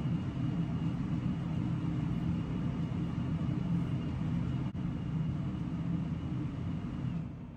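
A steady low background hum and rumble of a running machine, which drops away suddenly about seven seconds in.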